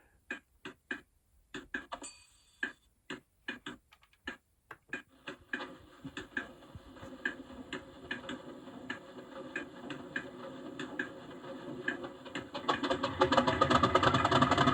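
Diesel locomotive cold-start sequence played by a Zimo DCC sound decoder through a model locomotive's speakers. It opens with a run of separate clicks and clunks of cab switches and relays, then the engine turns over with a regular ticking and builds. Near the end it comes up clearly louder as it fires.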